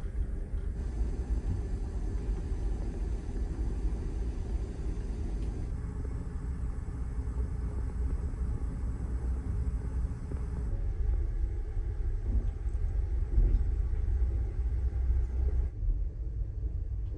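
Steady low rumble of a car ferry's engines and hull vibration, heard inside a passenger cabin while the ship is underway.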